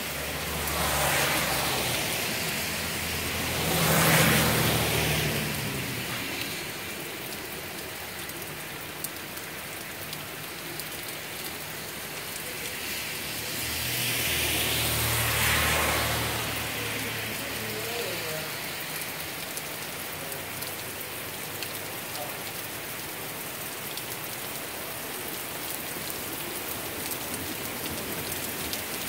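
Steady light rain falling. Twice, about a second in and again about fourteen seconds in, a low rumble swells up over a few seconds and fades back into the rain.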